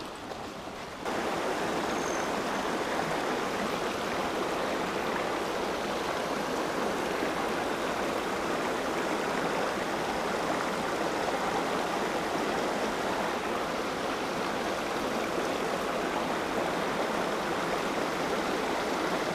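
Small mountain creek running steadily over rocks, louder from about a second in.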